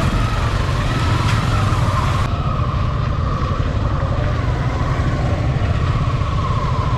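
Motorcycle engine running at low speed in slow traffic, a steady low rumble with a thin wavering whine above it.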